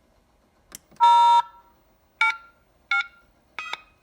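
Electronic beeps from a KITT replica dashboard's sound effects running its start-up sequence: a faint click, a long tone about a second in, then three short beeps.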